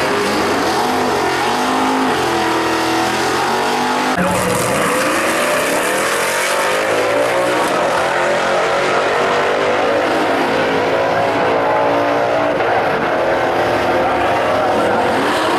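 Two drag cars' engines revving on the start line, then launching about four seconds in and running down the quarter mile at full throttle, the pitch climbing and stepping up through the gear changes.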